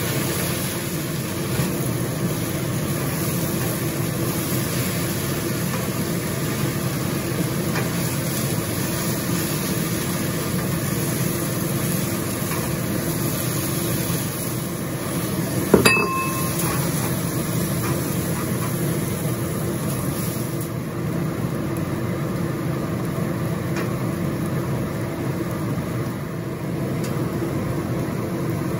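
Water spinach stir-frying in a wok over a high gas flame: a steady hissing, rumbling stove noise with sizzling, and one sharp metallic knock about halfway through. The high hiss softens about two-thirds of the way in.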